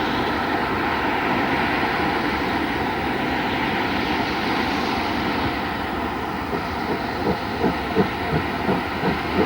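Steam train on the move: a steady rushing noise, then from about seven seconds in a regular beat of roughly three strokes a second.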